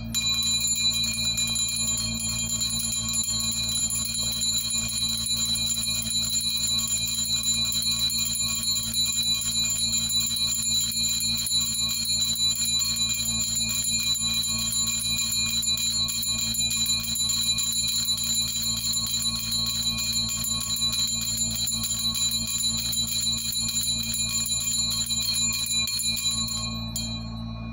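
Small brass hand bell shaken without pause, its clapper striking rapidly so the bell rings continuously, until it stops shortly before the end.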